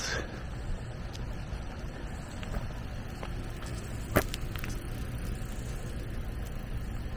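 Steady low rumble with a single sharp click about four seconds in.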